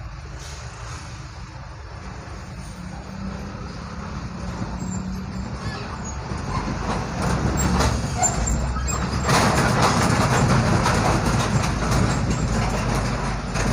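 Heavy trailer truck running alongside in traffic, its engine rumble growing louder from about halfway in and loudest, with a hiss-like noise on top, about two-thirds of the way through.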